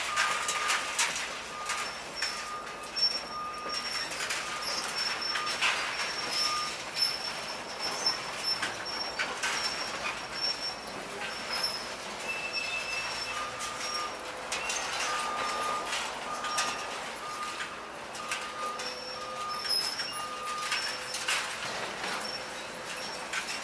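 Demolition excavator working scrap metal and rubble with its grapple: irregular metal clanks, knocks and scraping. Over this, a reversing alarm beeps about one and a half times a second, falls silent for several seconds in the middle, then starts again.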